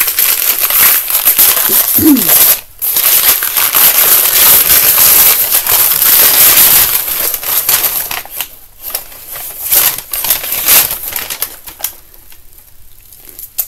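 Brown kraft paper wrapping crinkling and rustling as a hardcover book is unwrapped from it, a dense crackling that thins to scattered crinkles after about eight seconds and goes quiet near the end.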